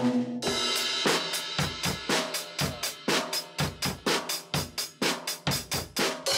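Acoustic drum kit played in a steady beat, bass drum, snare and cymbals at about four strokes a second.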